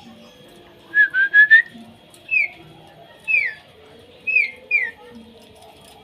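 Caged Asian pied starling (jalak suren) whistling. About a second in it gives a quick run of four short notes, then four loud, clear whistles that each slide downward, roughly one a second.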